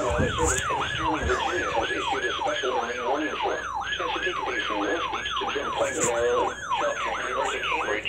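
Weather alert radio sounding its siren alarm for an incoming warning: a pitched whoop that jumps up and falls away again, repeating about three times a second without a break.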